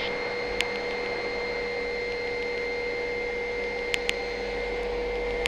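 Helicopter taking off, heard as a steady hiss with a constant whine, broken by a few sharp clicks.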